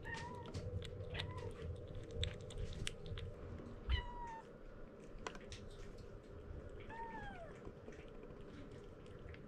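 Kitten mewing: about four short, high mews, the last one near the end longer and falling in pitch, with small clicks from the kitten eating wet food off a spoon at a ceramic bowl.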